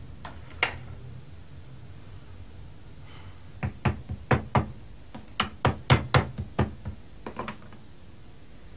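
Two light clicks, then a quick run of about fifteen sharp knocks in three uneven groups of about four a second.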